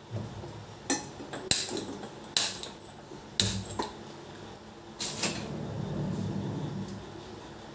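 Metal kitchen vessels and utensils clattering, a series of about six sharp clinks and knocks, followed by a couple of seconds of steadier sound.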